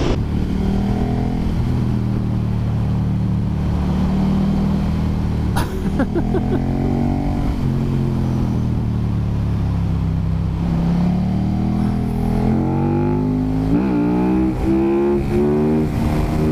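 Big sport motorcycle engine heard from the rider's helmet over wind noise, its pitch falling and rising with the throttle. Near the end the KTM 1290 Super Duke R's V-twin pulls hard, climbing through several quick upshifts.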